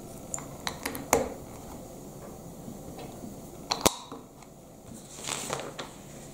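Plastic Lego bricks being handled and pressed onto a plate. There are a few small clicks in the first second or so, then one sharp snap a little before four seconds in, and a short rubbing scrape around five seconds.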